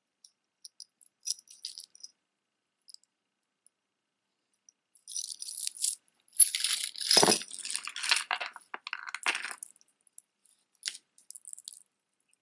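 Costume-jewelry metal chains, beads and charms clinking and rattling as they are handled. There are a few light jingles at first, then a busier clatter from about five to nine seconds, with a heavier knock around seven seconds in, as the necklace is set down and another is picked up.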